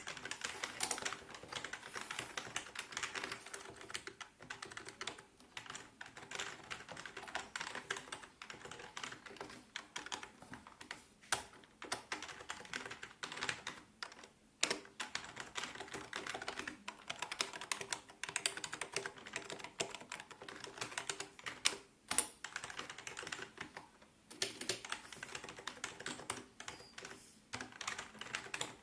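Continuous typing on a Qsenn SEM-DT35 keyboard: a dense, uneven patter of key presses with a few brief pauses.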